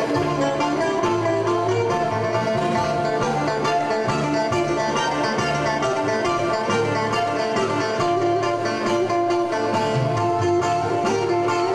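Live Greek band playing a fast syrtaki dance tune, with a bouzouki's plucked melody over keyboard and sustained bass notes.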